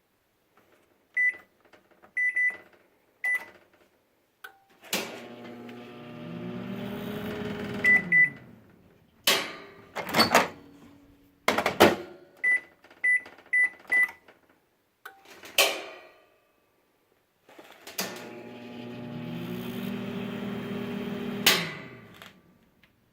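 Microwave oven keypad beeping as a time is entered, then the oven starting up: a steady hum that rises in pitch as it gets going and sinks as it stops. More beeps and several sharp clicks follow, and the oven runs again for a few seconds before cutting off with a click.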